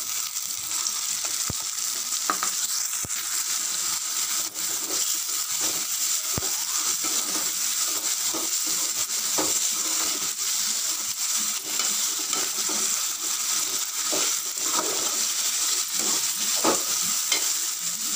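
Chopped tomatoes and sliced onions sizzling in hot oil in a metal pan, stirred with a metal slotted spoon that scrapes against the pan again and again over a steady frying hiss.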